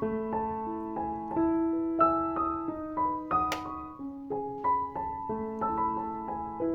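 Background music: a gentle piano melody of struck notes, with a brief hiss about three and a half seconds in.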